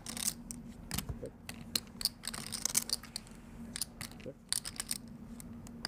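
Poker chips clicking and clacking as they are riffled in a player's hand and handled at the table: many short, sharp clicks, some in quick clusters.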